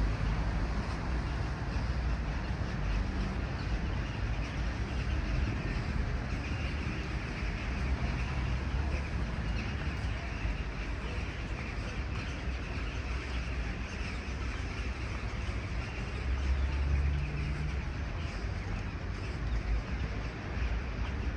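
Steady outdoor ambience: a continuous low rumble and hiss of street traffic, with no distinct events.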